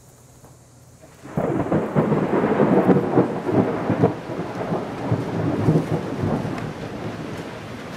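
A long roll of thunder that breaks suddenly about a second in, rumbling and crackling loudly for several seconds before slowly dying away.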